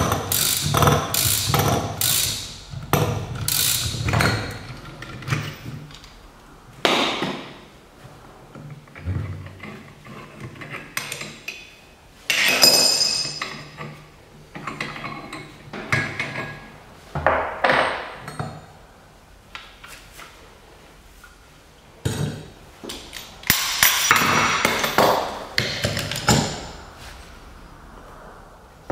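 Metal clicks, knocks and clanks of a steel bearing separator and puller being worked with a wrench while pulling the old bearing race off a wheel hub. Rapid clicking at the start, sparser knocks with one ringing metallic ping about halfway through, and a burst of clatter near the end.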